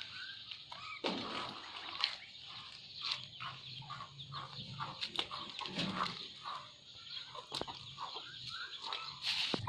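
Scattered short animal calls, farmyard-fowl-like, over a steady run of small clicks and rustles.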